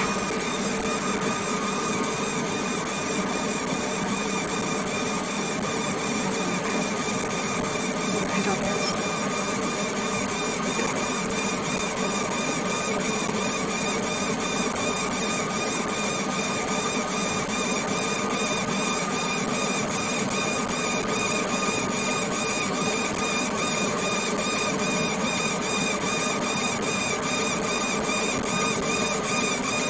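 Fiber laser marking machine running steadily while it marks a photo into red copper: an even machine buzz with several held tones.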